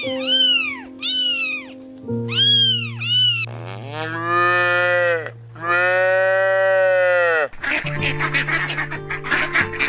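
A cat meowing several times in quick, high calls. Then two long, drawn-out cow moos, followed near the end by a flock of ducks quacking together, all over steady background music.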